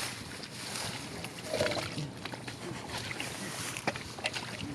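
Sloshing and small splashes of hands working through shallow muddy water, with scattered sharp clicks.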